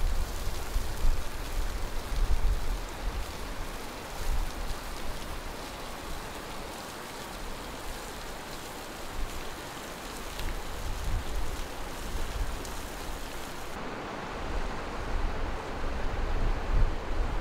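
Steady rush of flowing water from a pipe outfall pouring down a concrete retaining wall and the river below, with wind gusting on the microphone. About fourteen seconds in the hiss dulls and the wind rumble grows stronger.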